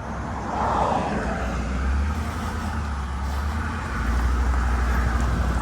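Ford F-150 pickup's engine running with a steady low drone, getting louder about two seconds in and again about four seconds in as it pulls another truck on a tow strap.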